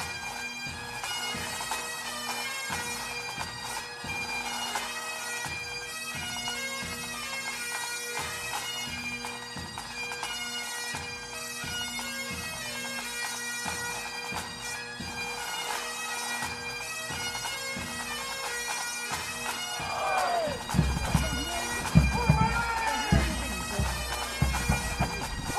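Great Highland bagpipes of a marching pipe band playing a tune over their steady drone. Near the end, nearby voices and low rumbling knocks come in over the pipes.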